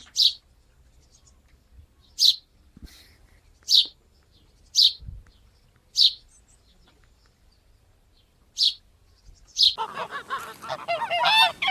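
A bird gives single sharp, high chirps spaced a second or two apart, then near the end a flock of geese breaks into loud, rapid honking.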